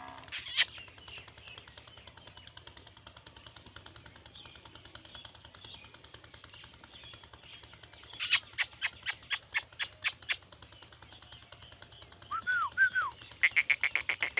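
Bird squawks in quick runs: about ten sharp calls in two seconds about eight seconds in, a short two-note chirp a few seconds later, and another rapid string of squawks near the end.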